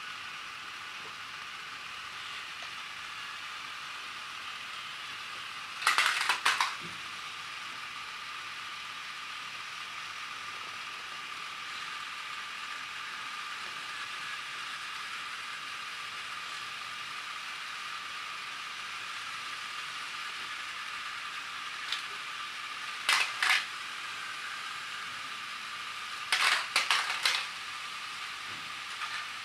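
Battery-powered Plarail toy trains whirring steadily along plastic track, with loud plastic clattering as trains tumble off and crash into a pile: once about six seconds in, then twice in quick clusters near the end.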